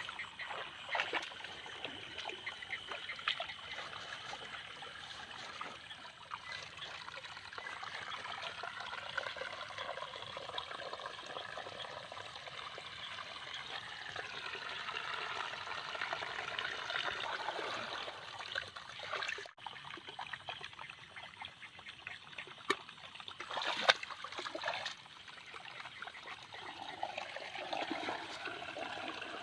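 Shallow water trickling and running steadily, with scattered splashes, as from flooded ground being waded and worked with nets. One louder splash comes about four-fifths of the way in.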